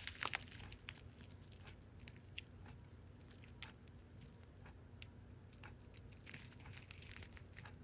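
Faint crinkling and scattered light ticks of small plastic bags of diamond painting drills being handled.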